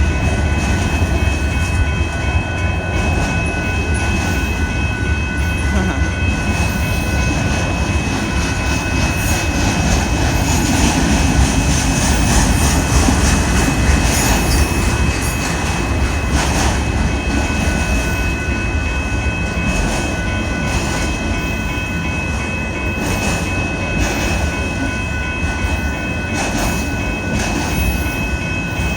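Union Pacific freight train of autorack cars rolling steadily past: a continuous low rumble of wheels on rail with scattered clicks, and thin high steady tones running over it.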